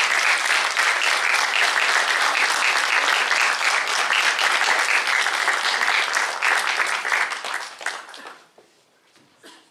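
Audience applauding, dense steady clapping that thins out and dies away about eight seconds in.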